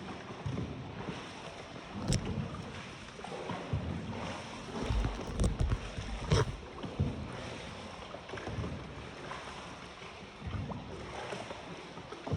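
Small boat on water: water splashing and lapping, with a few sharp knocks and low thumps.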